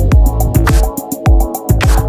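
Background electronic music with a steady beat: punchy kick drums falling in pitch, ticking hi-hats and sustained bass and synth notes.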